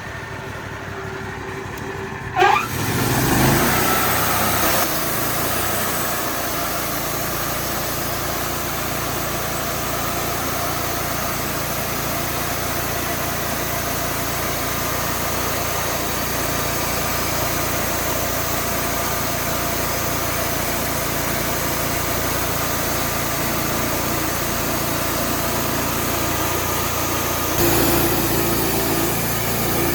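Wood-Mizer portable band sawmill: its engine runs at idle, then about two and a half seconds in it comes up to speed and the band blade cuts along a white oak log, a long steady sawing noise over the engine, taking a two by eight off the top. The sound shifts near the end.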